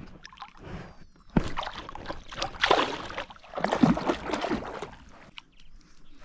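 Water splashing and sloshing in two loud bursts, with a sharp knock about a second and a half in.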